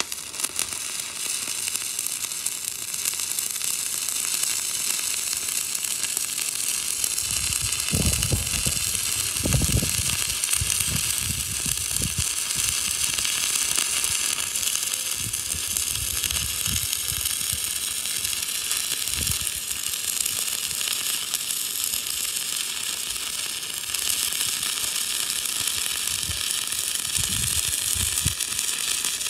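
Stick-welding arc of a 7014 electrode running a horizontal bead: a steady crackling sizzle that starts as the arc is struck and burns on evenly. A few low thumps come through about eight to twelve seconds in and again near the end.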